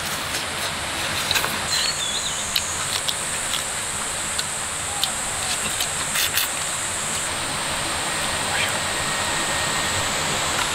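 Steady outdoor background hiss with a continuous high insect buzz, a short bird chirp about two seconds in, and scattered small clicks and smacks of someone eating.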